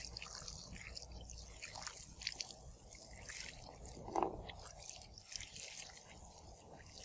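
Water poured from a jug, splashing and pattering faintly on the plastic lid of a battery box and running off onto concrete, with one louder moment about four seconds in.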